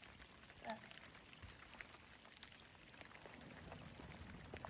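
Faint rain falling, with scattered light drops pattering. A brief short pitched sound comes less than a second in.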